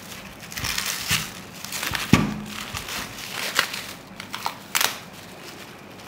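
Plastic bag and foam wrapping crinkling and rustling as it is pulled off a metal part by hand, in irregular bursts, with a sharp knock about two seconds in.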